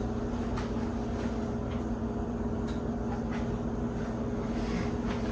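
Steady low hum with two constant tones, like a running appliance, with a few faint light clicks over it.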